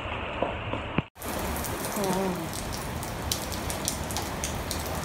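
Heavy rain falling and splashing on a flooded paved yard: a steady hiss dotted with sharp drop splashes, with a brief dropout about a second in.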